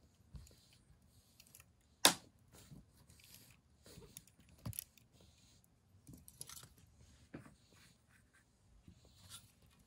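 Soft scattered rustling, scratching and clicking of a cat playing on a rug, grabbing and kicking at its flower-shaped hat and a feather wand toy. A sharp click about two seconds in is the loudest sound, with smaller ones later.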